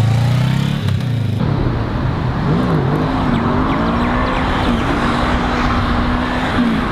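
Honda CBR500R's parallel-twin engine revving hard as the bike is held in a wheelie, its pitch rising and dipping as the throttle is worked.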